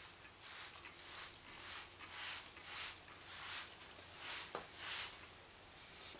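Trigger spray bottle of aluminum cleaner being pumped, a rapid series of about nine short hissing sprays that stop about five seconds in.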